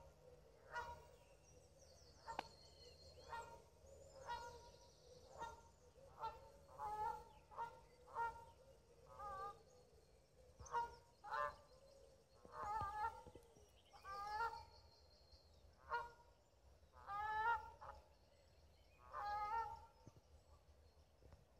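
Geese honking repeatedly, one short call every second or so, getting louder in the second half. A small songbird's high twittering song comes in twice above them.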